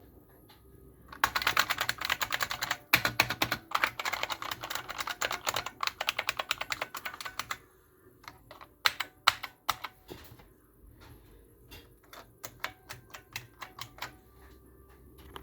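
IBM Model M keyboard's buckling-spring keys clicking under fast typing, starting about a second in. After about six seconds the typing slows to scattered single keystrokes.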